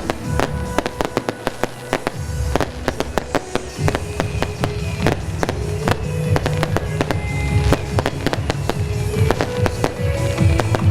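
Beehive rockets firing from a launching rack in a dense, irregular barrage of cracks and bangs, with music playing underneath.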